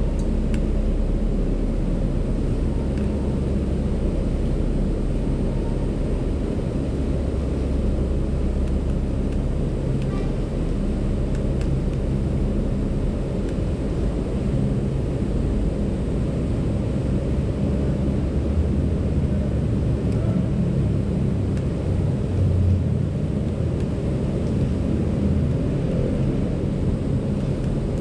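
Wind buffeting an outdoor microphone: a steady, uneven low rumble with no distinct events.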